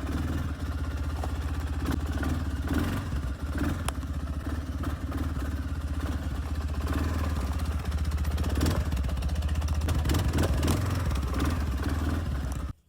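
A vehicle engine running steadily with a low rumble, with some rattling. It cuts off suddenly near the end.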